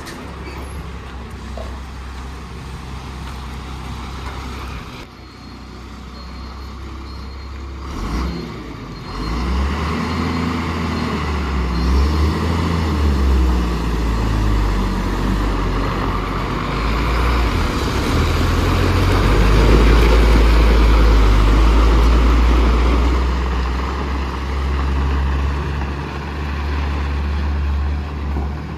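JCB backhoe loader's diesel engine running, revving up about nine seconds in, its note rising and falling as it works, loudest around twenty seconds in.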